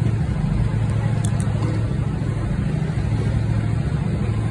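Steady low engine hum of a motor vehicle idling close by.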